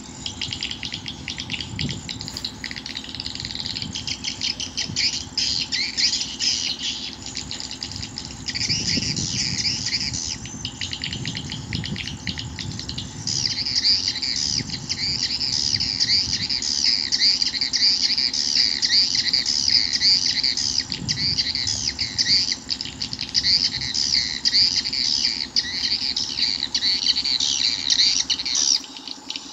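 Swiftlet call sound: a dense, continuous chorus of rapid swiftlet chirps and twitters, the kind of call used to lure swiftlets into a nesting house.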